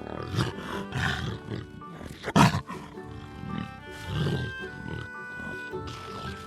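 Jaguar calling: a run of short, rough roaring calls, roughly one a second, the loudest about two and a half seconds in. Soft background music with sustained notes plays underneath.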